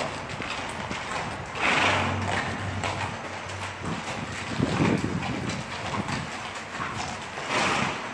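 Horse's hooves clip-clopping on a hard surface as it is ridden. Two louder rushing noises, about two seconds in and near the end, rise above the hoof knocks.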